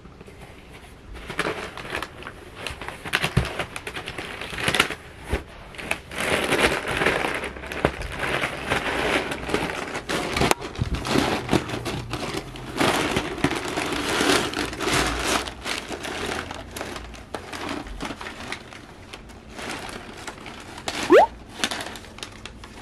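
Crumpled brown kraft packing paper crinkling and rustling as it is pulled out of a cardboard shipping box and pawed by a cat. Near the end, one short squeak that rises quickly in pitch, the loudest sound here.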